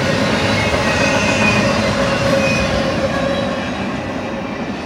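Double-stack intermodal freight cars rolling past on steel rails, with steady wheel-on-rail noise and a few brief high wheel squeals. The noise fades over the last couple of seconds as the end of the train passes and moves away.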